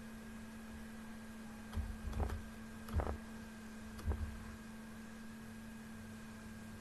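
Steady electrical hum with a thin high tone over it, broken by a few soft clicks with dull thuds about two, three and four seconds in, from clicking at a computer desk.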